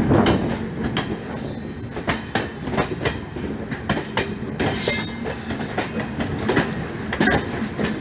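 Express train running at speed, heard from an open coach doorway: a heavy rumble with a rapid run of wheel clacks over rail joints, and a short high wheel squeal about five seconds in.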